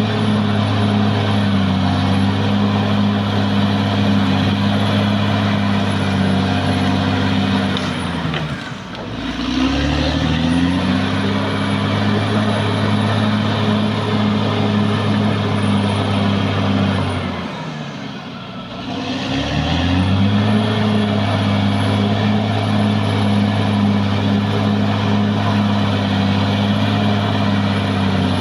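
Caterpillar D6R XL bulldozer's diesel engine running hard, with a faint high whine over it. Twice, about a third and two thirds of the way through, the engine note drops away and then climbs back up.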